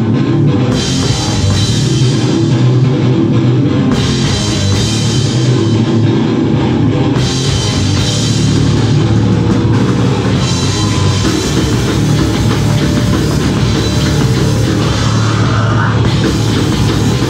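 Live punk rock band playing at full volume: electric guitar, bass guitar and a drum kit, with bright cymbal wash that comes and goes in sections every few seconds.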